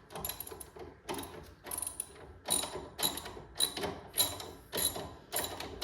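Hand socket ratchet clicking in quick repeated strokes, about two a second, as a 15 mm bolt is wound out.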